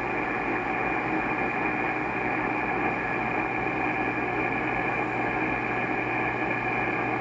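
Amateur radio transceiver's speaker giving a steady rushing static with no voices in it. The noise is interference from an infrared heater, about S8, which drowns out weak signals.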